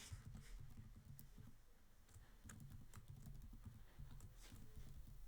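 Faint computer keyboard typing, scattered light key clicks over a low room hum.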